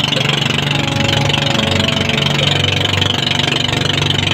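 Boat engine of a motorised outrigger boat running steadily at sea, with a fast, even pulsing beat.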